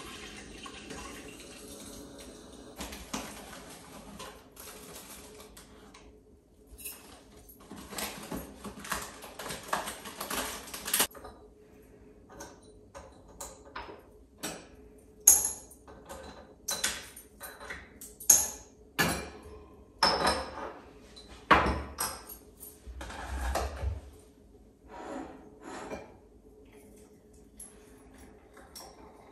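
Crockery and cutlery being handled while tea is made: a stretch of steady rushing, then a long run of sharp clinks and knocks of cups, spoons and dishes.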